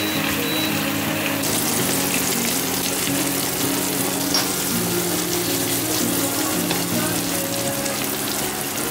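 Diced pancetta and onion sizzling steadily in hot oil in a frying pan, over soft background music.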